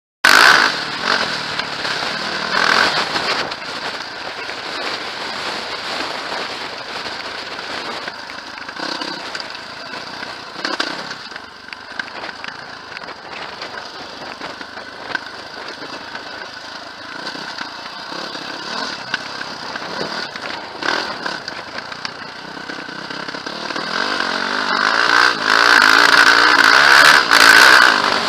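Off-road vehicle engine running as it is ridden along a rough gravel track. It gets louder about four seconds before the end.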